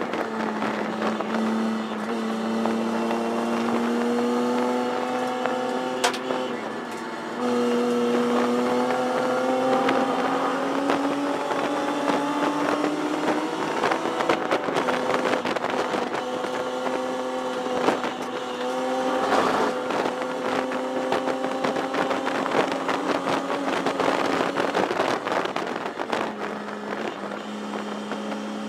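1973 Datsun 240Z race car's 2.4-litre straight-six running hard, heard from inside the cockpit. Its pitch steps down about a second in and again around seven seconds, then climbs slowly while the car is held at speed.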